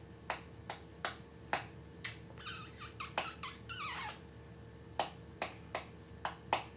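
A run of sharp, light taps or clicks, about two a second, with a squeaky scraping stretch of falling pitch in the middle.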